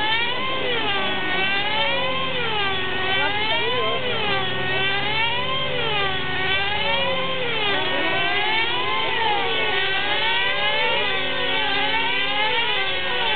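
Radio-controlled aerobatic model helicopter flying, its rotor and motor whine sweeping up and down in pitch over and over, about once every second or two, as it works through its manoeuvres.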